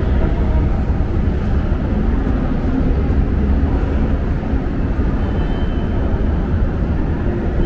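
Steady low background rumble, with a brief faint high tone about five seconds in.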